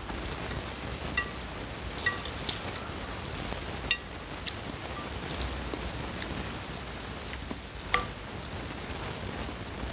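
Metal fork and spoon clinking against the bowl as noodles are stirred and twirled in soup: about seven sharp, briefly ringing clinks, the loudest about four seconds in, over a steady hiss.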